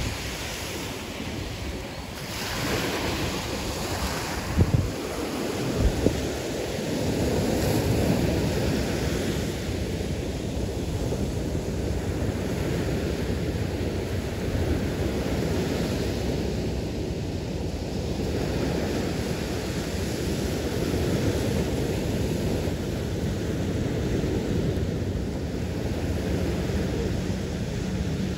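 Gulf of Mexico surf breaking and washing up a sandy beach, steady throughout, with wind buffeting the microphone. There are a few short low thumps about five seconds in.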